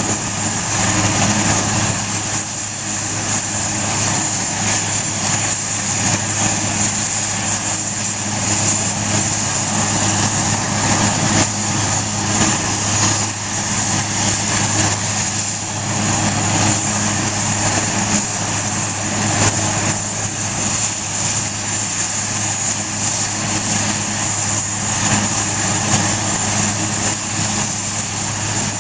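Eurocopter AS332 Super Puma helicopter idling on the ground with its twin turbine engines running and main rotor turning before takeoff: a steady high turbine whine over a steady low hum and rushing rotor noise.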